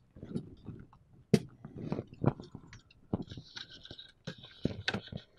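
Hands working wiring and plastic motor connectors on a 3D printer's control board: scattered clicks and knocks as a connector is pushed on, with rustling of wires between about three and five seconds in.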